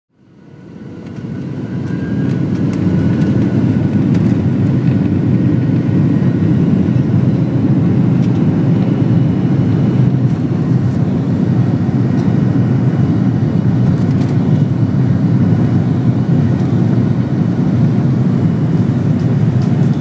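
Cabin noise of a Boeing 737-800 on its takeoff roll, heard from a window seat: a steady low rumble of the CFM56 engines and the wheels on the runway, with a faint engine whine above it. It fades in over the first couple of seconds.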